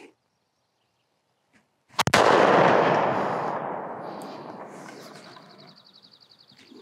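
A single shot from a .577 Snider carbine firing a cartridge over 130 years old, about two seconds in. The report echoes and dies away slowly over several seconds.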